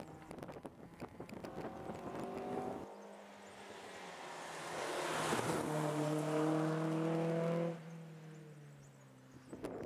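Rally car engines on a closed mountain road: one car's engine fades away as it accelerates off, then the next car approaches at high revs, its engine note growing loud and then cutting off sharply near the end as the driver lifts off for the bend.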